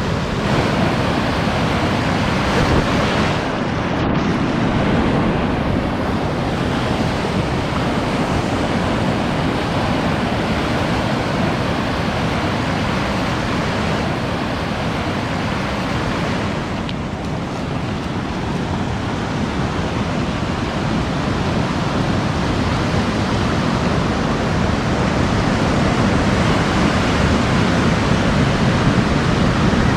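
Surf washing in and out over a sandy beach, a steady rush of breaking waves and foam, with wind buffeting the microphone.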